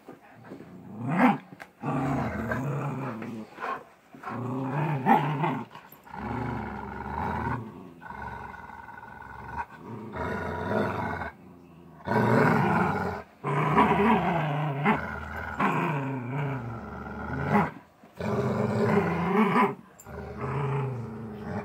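Golden retrievers growling playfully while tugging on a toy, in repeated bouts of one to two seconds with short breaks between.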